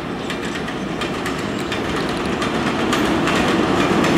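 NYC Subway train approaching on elevated track, its rumble growing steadily louder. Wheels click over rail joints, more often near the end.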